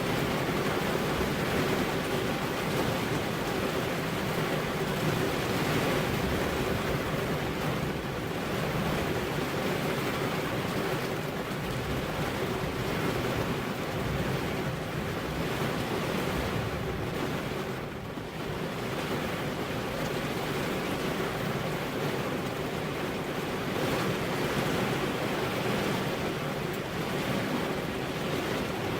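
Heavy rain falling steadily, a dense even hiss with fine pattering throughout and a brief slight lull about two-thirds of the way in.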